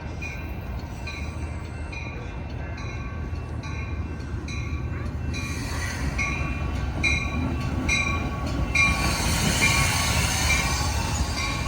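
Metra commuter train pulling into the station, its rumble growing from about six seconds in and peaking with a high hiss and squeal of wheels and brakes around nine to ten seconds. Throughout, a level-crossing bell rings steadily about twice a second.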